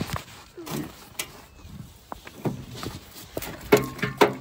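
Ice in a frozen galvanized stock tank being struck and broken up: irregular knocks and cracks, about seven in all, the loudest near the end. A brief pitched cry sounds with the last knocks.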